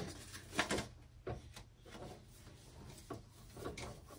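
A few faint, scattered knocks and rubbing sounds of objects being handled.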